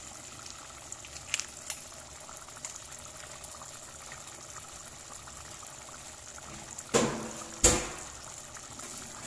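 Tomato meat sauce simmering in a pot on a gas stove, a steady bubbling hiss. A couple of faint clicks come early, and two short, louder knocks come close together about seven seconds in.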